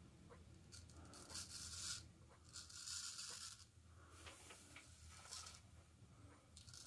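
Straight razor shaving through a lathered full beard: a few faint rasping strokes as the blade cuts the whiskers.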